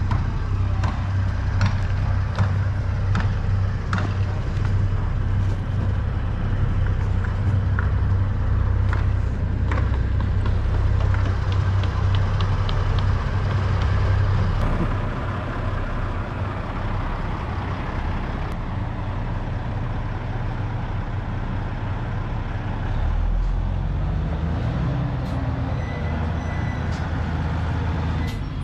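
Semi truck's diesel engine running steadily with a deep, constant hum, with scattered light clicks and knocks over it.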